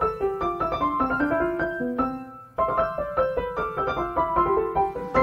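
Piano-style keyboard music playing a melodic run of separate notes in two phrases, with a short break about two and a half seconds in.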